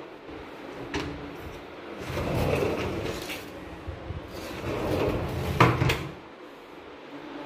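Metal-framed sliding glass balcony door. A click about a second in, then the door rumbles along its track as it is slid open, and again as it is slid shut, ending in sharp knocks as the frame meets the jamb near the end.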